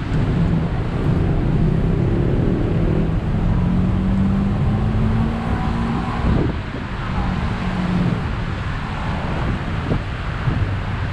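Busy city road traffic: a steady rush of cars and heavier vehicles, with an engine note that rises slowly and breaks off about six seconds in, then another engine tone briefly after.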